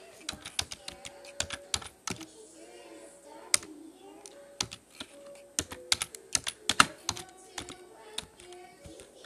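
Fingers typing and tapping on a device, quick irregular clicks in flurries, the loudest a little before seven seconds in.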